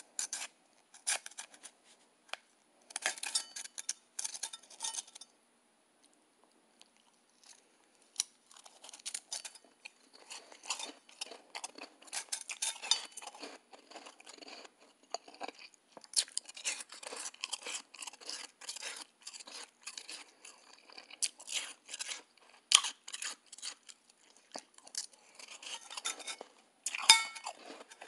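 Close-up crunching and chewing of soft, snowy ice, in bursts of crackly bites, with a plastic spoon scraping and clinking in a stainless steel bowl. There is a quiet pause of a few seconds about five seconds in.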